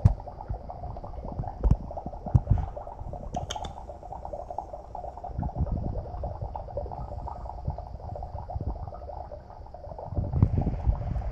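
Dry ice bubbling vigorously in a cup of water, a steady fizzing churn as it sublimates into fog, with a few sharp clicks. A louder low rumble comes in near the end.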